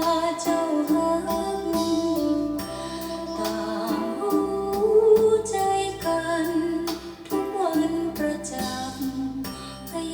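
A song with a sung vocal line over instrumental accompaniment, played back from CD through Polk RTi A3 speakers on a home hi-fi system.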